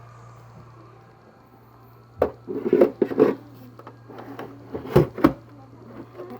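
Hands handling a small plastic mini dehumidifier: a knock, a second of rubbing and scraping, then two sharp clicks in quick succession, over a faint steady low hum.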